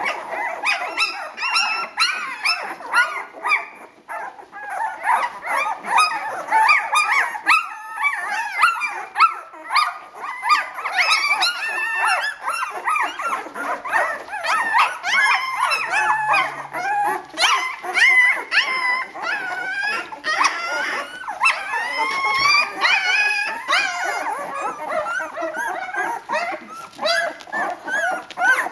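A litter of young puppies squeaking and whimpering without pause, many high-pitched wavering cries overlapping one another.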